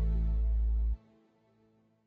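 Music ending on a held chord with a deep bass note, which cuts off suddenly about a second in.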